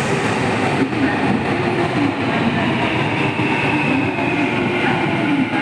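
Nankai 12000 series electric train pulling into a station: steady running noise of wheels on rails, with a faint high whine that drifts slowly down in pitch as it slows.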